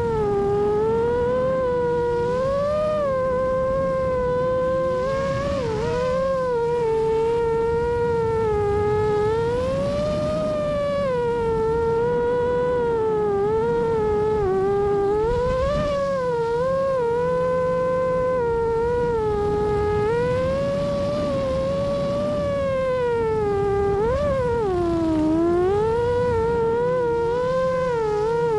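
FPV racing drone's motors and propellers whining loudly, the pitch swooping up and down as the throttle changes through turns, over a low rumble.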